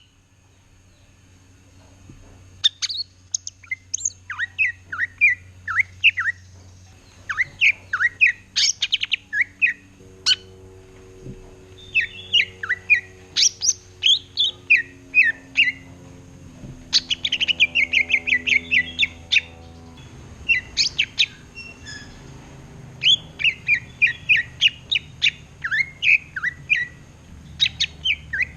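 A cucak ijo (green leafbird) singing a vigorous, rapid chattering song in bursts of fast sweeping notes with short pauses between phrases.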